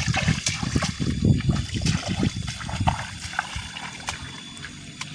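Water splashing and sloshing irregularly in shallow water, with sharp knocks mixed in, busiest in the first three seconds and then dying down.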